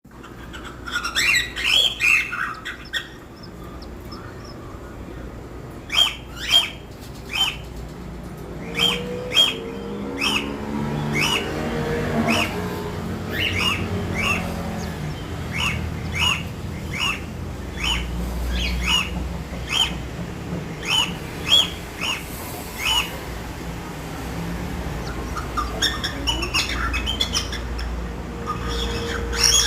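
Two-day-old cockatiel chick peeping: short high calls in runs, about two a second, with a few pauses.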